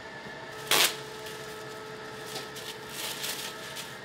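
A clear plastic sheet rustling and crinkling as it is spread over rows of bread-dough balls to cover them. There is one sharp, loud rustle just under a second in, then several softer ones, over a steady faint electrical hum.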